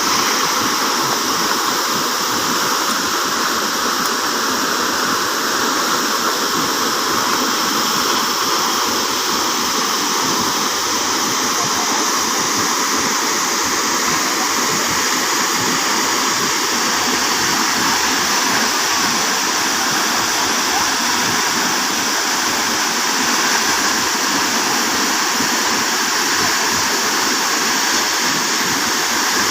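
Waterfall: a steady, unbroken rush of falling water, hissy and bright rather than deep.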